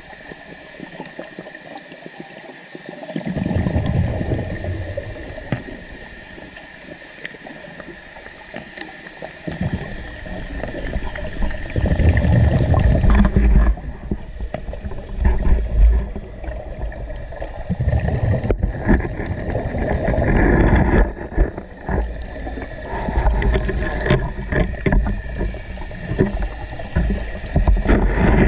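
Scuba diver breathing underwater through a regulator: loud rumbling surges of exhaust bubbles every few seconds, lasting a second or more each, over a steady hiss.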